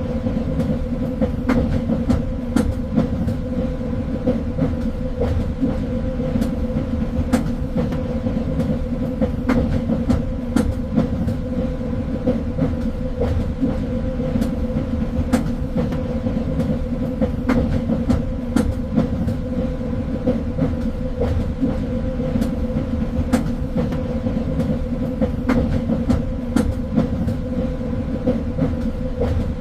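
Train running along the rails: a steady low rumble and hum, with irregular sharp clicks and knocks from the wheels over the track.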